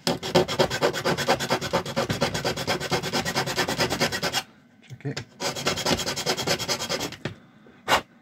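Flat metal hand file rasping back and forth across the edge of a plastic remote-control casing, cutting a notch for a charging socket, in fast, even strokes. The filing stops briefly about four and a half seconds in, resumes for about two seconds, and a single knock follows near the end.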